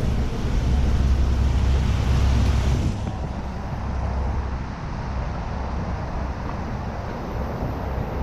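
City traffic noise heard from a moving bicycle, with wind rumbling on the camera's microphone; the heavy low rumble eases off about three seconds in.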